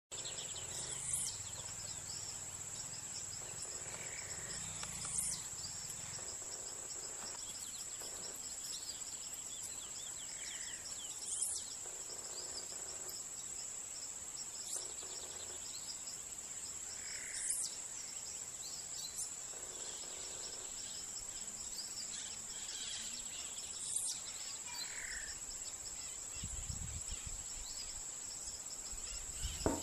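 Steady high-pitched insect trill, cricket-like, with a short sharp chirp standing out every five or six seconds.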